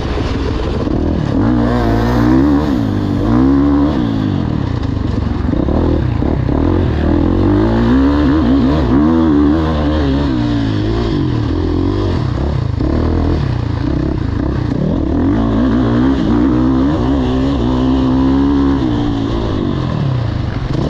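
Dirt bike engine revving hard, its pitch rising and falling again and again as the rider works the throttle and shifts through the gears.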